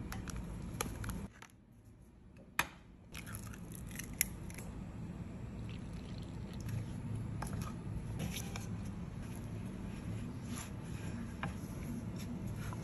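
Kitchen sounds of mixing dumpling dough in a glass baking dish: flour and milk poured in, two sharp clinks a second and a half apart near the start, then dough squished and worked by hand, over a steady low hum.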